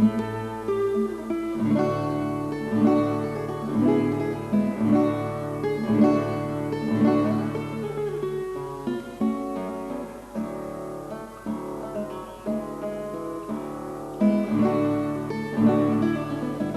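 Acoustic guitar music: plucked and strummed notes over a low bass line.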